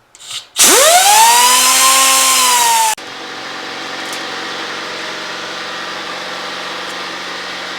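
A power tool motor spins up with a rising whine about half a second in, runs loud for about two seconds, then drops to a lower, steady running sound while cutting a spare metal bushing to length.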